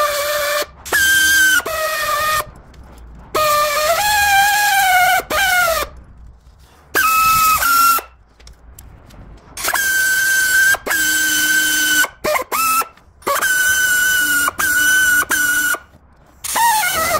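Handheld pneumatic air saw on an air hose, triggered in many short runs of a high whine, each about half a second to two seconds long. Its pitch sags and wavers in some runs, as the tool is worked against the plastic grille frame.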